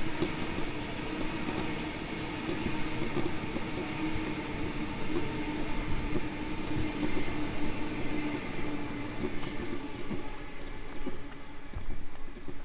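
Sydney Trains electric train running through the station: a steady hum over rail noise, with scattered knocks from the wheels. The hum fades near the end.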